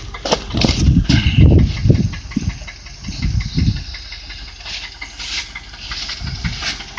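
Land Rover Discovery engine idling with a fast, steady ticking knock, which the owner puts down to an exhaust manifold leak. Several loud low rumbles come in the first few seconds.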